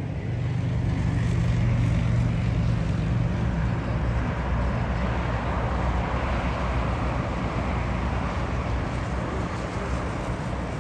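Steady low rumble with a wide hiss over it from the jet engines of a Boeing 747 taxiing at idle after landing, loudest early on and easing slightly.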